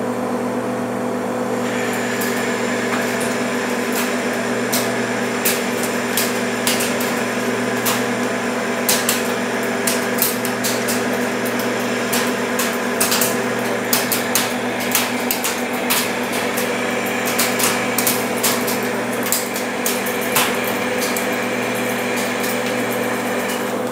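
Metal lathe running with a boring bar taking a cut inside a sprocket bore: a steady hum from the machine, a thin high whine from the cut that starts about two seconds in and stops near the end, and many sharp ticks.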